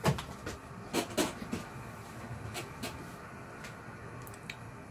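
Small clicks and knocks from phone parts and tools being handled on a workbench, sharpest in the first three seconds and fainter near the end.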